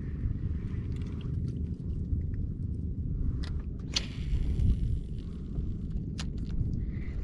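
Wind buffeting the microphone in a steady low rumble, with a few sharp clicks and taps, the loudest about four seconds in.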